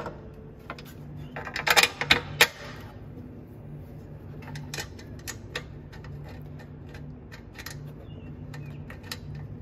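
Light metallic clicks and rattles of a metal mesh grille panel being handled and fitted against a metal bumper by hand. A cluster of sharp clicks comes about two seconds in, then scattered ticks.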